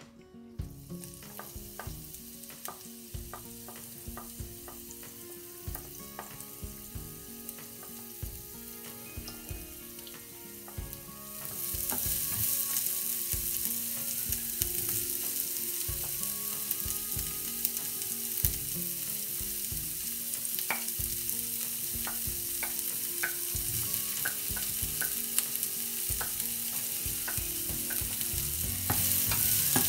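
Cooking oil in a non-stick frying pan, at first a faint hiss with scattered small ticks, then a sudden loud, steady sizzle about eleven seconds in as sliced onions fry in the hot oil. The sizzle grows louder again near the end, with red and yellow bell pepper strips frying alongside the onions.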